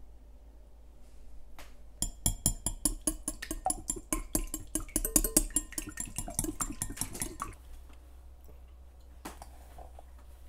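A rapid run of sharp kitchen knocks and clatter, several a second, starting about two seconds in and lasting about five seconds, as utensils strike a board or bowl during food preparation.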